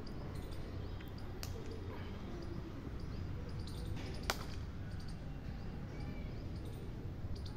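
Outdoor field ambience: a steady low rumble of wind on the phone's microphone, with faint bird chirps and a few sharp knocks, the loudest about four seconds in.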